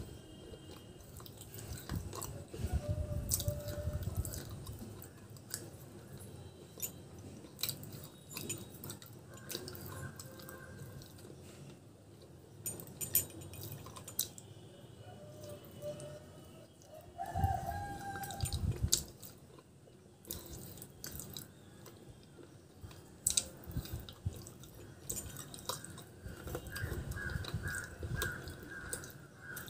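Close-up chewing and crunching of hard baked clay pot pieces, with irregular sharp clicks as the fragments break between the teeth.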